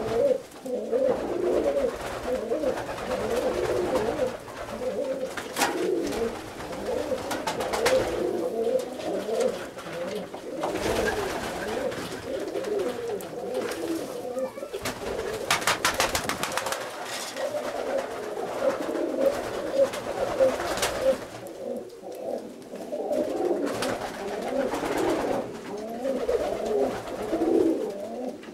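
A flock of domestic roller pigeons (Bijeljina/Janja rollers) cooing continuously, many birds overlapping, with a few short sharp noises around the middle.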